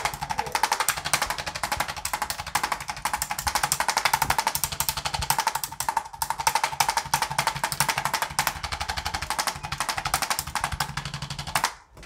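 Electric percussion massager hammering rapidly and evenly against the patient's body, a motor-driven buzz of fast pulses that switches off shortly before the end.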